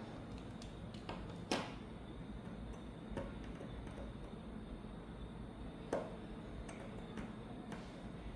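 Small, scattered clicks and taps of a Casio F-91W watch's plastic case and parts being handled and pried apart, with two sharper clicks about a second and a half in and near six seconds.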